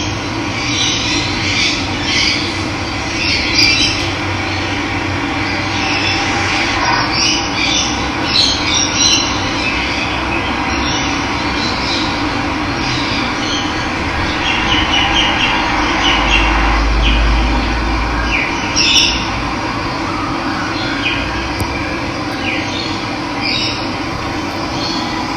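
Steady rush of running water with birds chirping over it, in short calls throughout; a brief low rumble comes about two-thirds of the way through.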